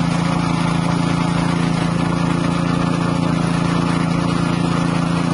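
Floating fish-feed pellet extruder machine running: a steady, loud drone with a strong low hum.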